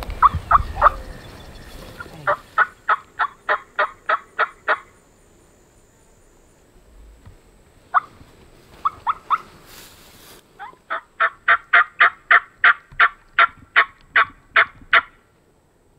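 Turkey yelping: runs of short, sharp, evenly spaced yelps at about four a second. There is a short run at the start, a run of about nine a couple of seconds in, a few single yelps midway, then a longer run of about sixteen in the second half.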